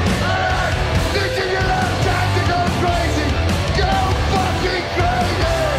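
Live heavy metal performance: a male lead vocalist sings the chorus line over a loud, steady band of guitars, bass and drums.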